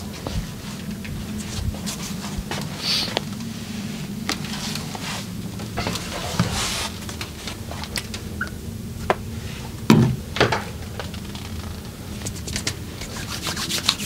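Hands rubbing and working over skin during a massage, with scattered light taps, two louder pats about ten seconds in and a quick run of taps near the end, over a steady low hum.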